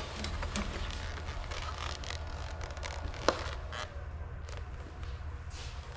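Welding helmet being put on and adjusted: plastic rustling and small clicks, with one sharp click about three seconds in. A steady low hum underneath.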